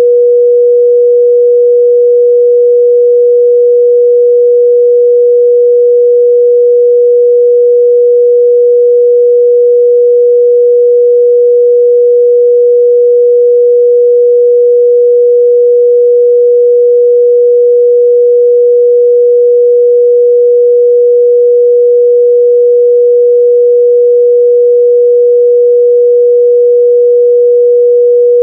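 A steady, loud 484 Hz pure sine-wave test tone, held unchanged at one pitch without a break.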